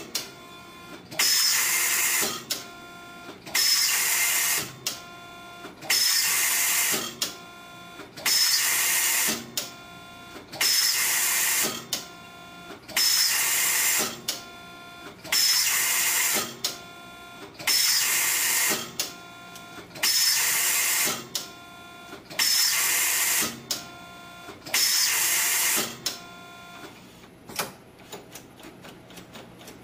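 Gerber MultiBender steel-rule processing machine cycling repeatedly as it works a slot into steel rule. A harsh noisy burst comes about every two and a half seconds, with whining motor moves between; the cycle stops near the end and gives way to faint quick ticking.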